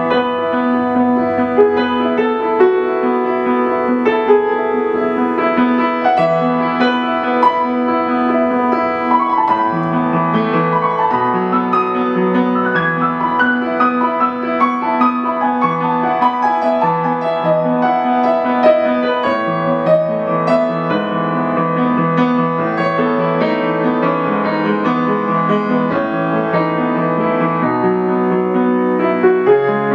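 Solo piano music: melody notes ringing over sustained chords, with the bass note changing every second or two.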